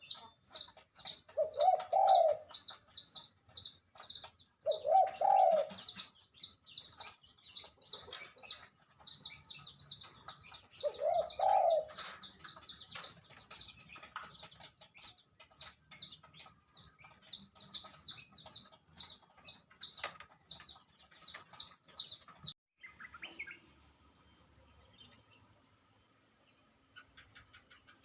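Birds calling: rapid, repeated high chirps about three or four a second, with a few lower coo-like calls mixed in. About 23 seconds in the chirping stops abruptly and gives way to a quieter, steady high whine like insects.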